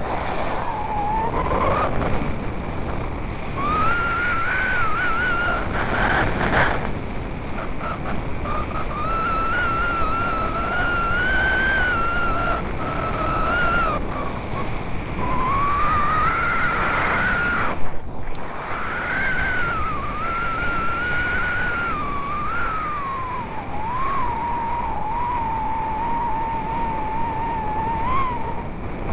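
Wind buffeting a body-worn camera's microphone during a fast downhill ski run, mixed with the hiss of skis on packed snow. A thin whistle wavers up and down in pitch through most of it and breaks off briefly about two-thirds of the way in.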